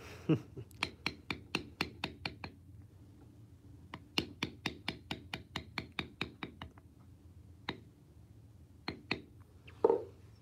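Mallet striking a steep checkered beveler stamp into leather, a quick run of sharp taps about four to five a second, pausing briefly between runs as the tool is moved along the flower petals. A short voice-like sound comes near the end.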